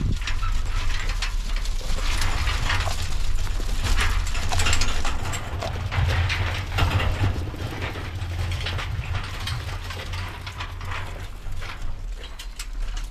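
Sheep jostling in a pen of galvanised metal hurdles: a dense, irregular clatter of hooves and rattling gates, over a steady low rumble.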